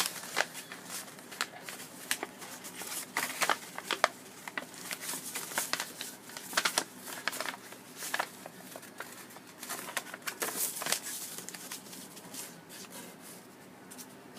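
Origami paper rustling and crinkling as it is folded by hand, with irregular crisp crackles while the sides are reverse-folded in; the crackling thins out near the end.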